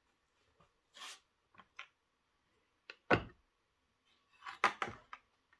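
Clear plastic blister packaging being handled: a few short crinkles and clicks, a sharper knock just after three seconds in, then a quick run of plastic clicks near the end.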